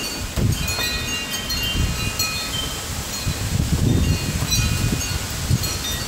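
Wind chimes jangling irregularly in strong gusts, many ringing notes at different pitches overlapping, with the wind buffeting the microphone in low rumbling gusts, strongest about four seconds in.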